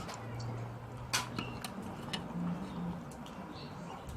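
A utensil clinks and taps against a bowl or plate during a meal: a handful of sharp clicks, the loudest about a second in. A faint steady low hum runs underneath.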